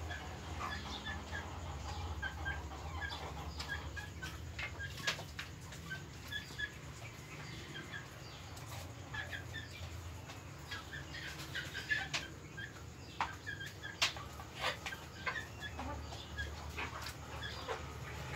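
A flock of chickens clucking softly and steadily in short repeated calls while feeding, with scattered sharp taps of beaks pecking at the feed bowls. A steady low hum runs underneath.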